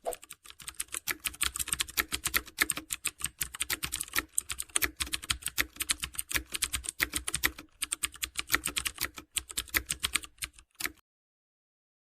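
Rapid computer-keyboard typing clicks, several a second and uneven, cutting off suddenly about eleven seconds in.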